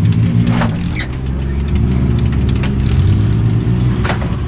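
Demolition derby car engines running and revving, rising and falling in pitch, with a few sharp knocks.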